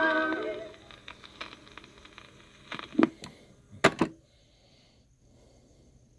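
The final held vocal notes of a soul record playing from a 45 rpm vinyl single fade out within the first second. Faint surface crackle and scattered clicks follow, with a few sharper clicks about three to four seconds in, then near silence.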